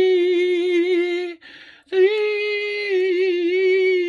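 A person singing long held notes without words, the pitch wavering slowly, with a short breath about a second and a half in before the next note.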